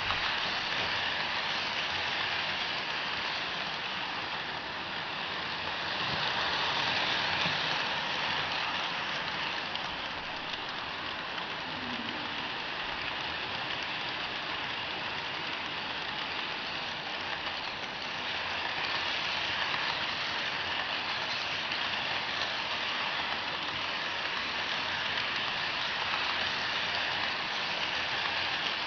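Rivarossi model Berkshire steam locomotive with a lead-weight motor running on its track, pulling a long train of model freight cars. A steady rolling hiss of motor and wheels on rail that swells and fades as the train goes around.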